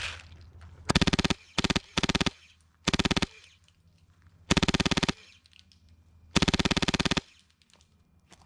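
Airsoft gun firing six short full-auto bursts of rapid clicking shots, the later ones longer, the last nearly a second. The shots are loud and close, fitting the player's own HPA Polarstar Jack–powered Classic Army Stoner light machine gun.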